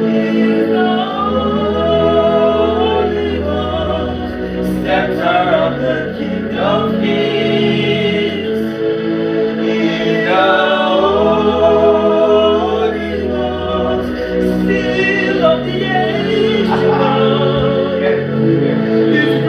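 Gospel worship music: a voice singing long, gliding phrases over sustained held chords.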